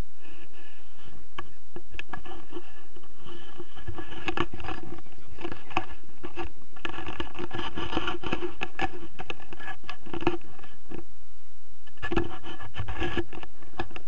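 Close scraping and rustling with many scattered clicks and knocks, heaviest in the middle and again near the end: gear being handled right by the microphone.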